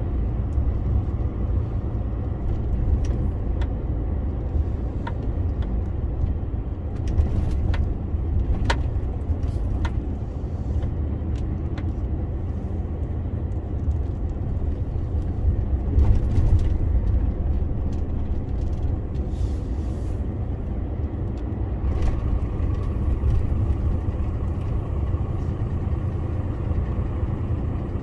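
2021 DAF CF 480 lorry on the move at road speed: the steady low rumble of its PACCAR MX-13 straight-six diesel, mixed with road and tyre noise. A few sharp clicks and rattles come in the first ten seconds or so, and a faint steady whine comes in about two-thirds of the way through.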